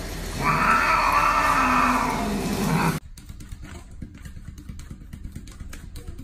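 A wet cat being bathed gives a long, loud, drawn-out yowl, rising in pitch and then breaking off. After that come quieter scattered soft ticks.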